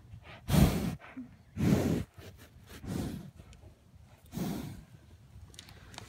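Horse breathing and blowing right at the microphone: four strong puffs of breath about a second apart.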